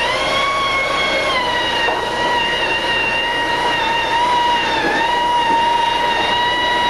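Electric drill spinning a Squirrel mixer paddle through drywall texture compound, its motor whining at a steady pitch that dips briefly twice.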